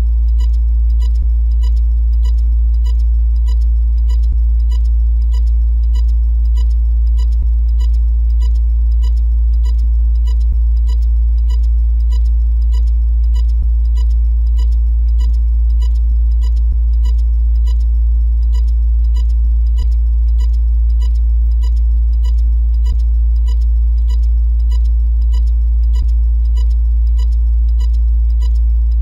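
A loud, steady low hum with a fast, even ticking over it that does not change.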